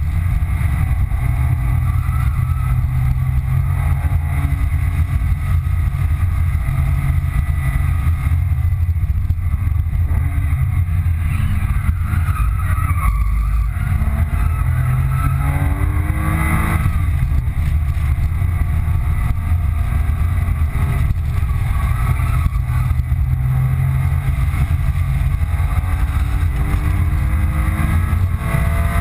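2005 Porsche 997 Carrera 2's rear-mounted flat-six engine heard from inside the cabin on a hard track lap, over a heavy low rumble of road and tyre noise. The engine note climbs under acceleration and drops on gear changes and braking, several times over.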